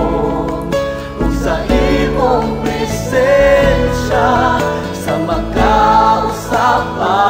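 Christian song sung in Cebuano: a melodic vocal line over a band accompaniment with a steady low bass.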